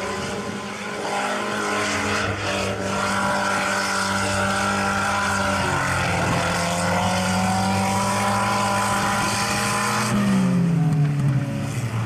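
Mud-drag vehicle's engine held at high, steady revs under load, then falling in pitch near the end as the throttle comes off.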